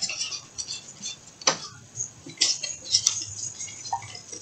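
Pokémon trading cards being flicked and slid against one another as a hand shuffles through a freshly opened booster pack: irregular papery swishes and light clicks, with sharper snaps about a second and a half in and again near three seconds.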